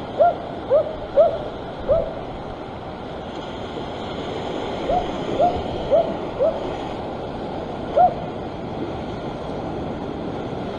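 A dog barking in short runs: four quick barks at the start, four more about halfway, and one later on. Steady surf washes against the rocks underneath.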